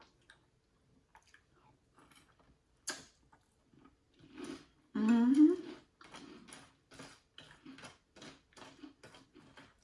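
Close-up chewing of crunchy sweetened corn cereal in milk: a run of short, quick crunches, about three a second in the second half, with a sharp click about three seconds in. A hummed 'mm' of enjoyment, rising in pitch, about five seconds in is the loudest sound.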